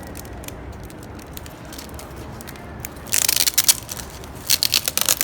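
Plastic shrink wrap crinkling and tearing as an album is unwrapped, in two loud crackling spells about three and four and a half seconds in, over quieter handling noise.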